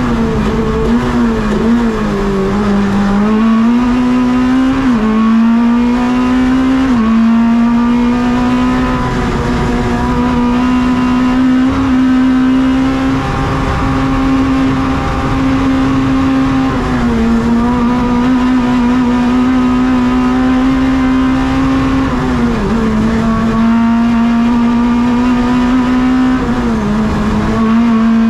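Renault Clio race car's engine at full throttle, heard from inside the stripped, roll-caged cabin, its pitch climbing through the revs and dropping sharply at each gear change, about half a dozen times.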